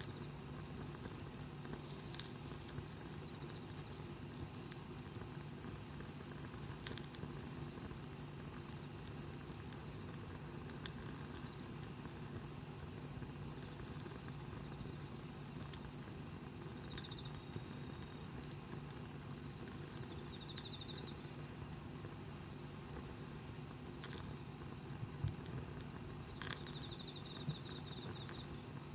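Insects calling at night: a high buzzing call about a second and a half long, repeated steadily about every three seconds, over a constant high hiss of other insects. A few short pulsed chirps and the odd sharp pop of a wood campfire come through.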